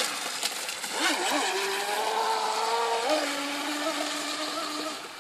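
Small electric RC speedboat running on an 11.1 V battery, its motor whining over a hiss, the pitch rising and falling with the throttle. It grows fainter near the end.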